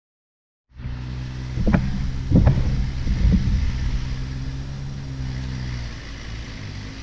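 An engine running steadily, cutting in under a second in, with three short louder bursts between about one and three and a half seconds in.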